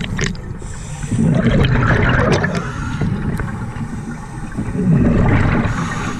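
A scuba diver's exhaled bubbles rushing out of the regulator, heard underwater: two surges about four seconds apart, over a steady low rumble.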